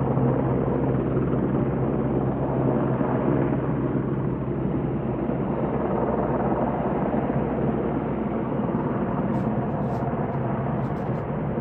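AW101 search-and-rescue helicopter flying past, its rotors and turbines giving a steady low drone that fades slightly as it goes.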